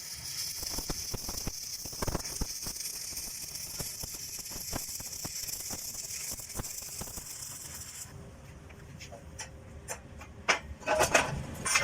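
Stick (shielded metal arc) welding arc, a steady crackling hiss, that stops about eight seconds in. A few sharp knocks follow near the end.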